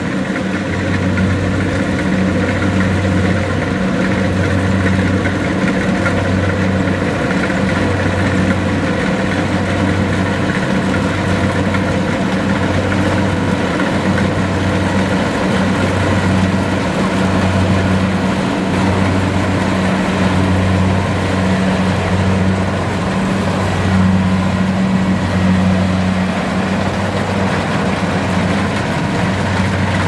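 Kubota DC70 combine harvester running steadily while cutting rice: the diesel engine and threshing machinery make a continuous drone, with a low hum that swells and dips about once a second.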